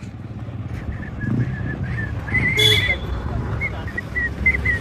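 A run of short, high whistle-like chirps, with one longer and louder near the middle, over a steady low rumble of street noise.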